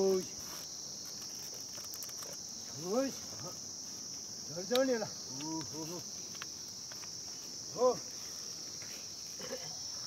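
Steady high chirring of crickets, with a ploughman's short, sharp calls to a pair of oxen pulling a wooden plough, several times, each rising and falling in pitch.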